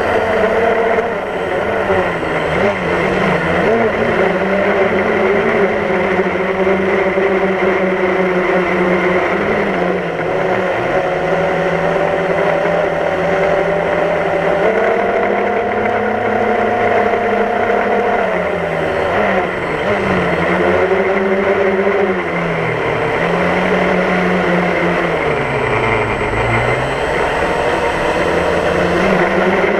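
DJI Phantom quadcopter's motors and propellers buzzing loudly in flight, heard from the GoPro mounted on the drone itself. The pitch of the buzz dips and climbs again several times as the drone manoeuvres.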